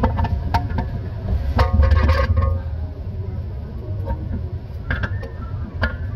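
Metal clinks and clanks as a pry bar levers at the shoe and spring parts of a truck's S-cam drum brake, with a louder burst of ringing metal about two seconds in, over a steady low rumble.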